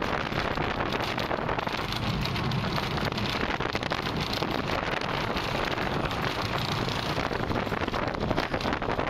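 Wind rushing over the microphone of a camera riding a steel roller coaster, mixed with the steady rattle of the coaster train running along its track.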